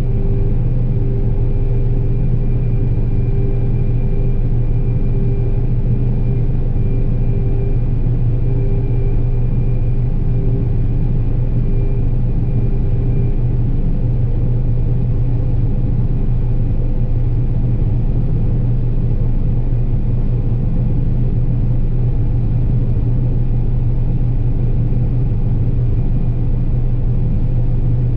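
John Deere 9770 combine running steadily while harvesting soybeans: a constant low machine drone with a faint higher whine that fades out about halfway through.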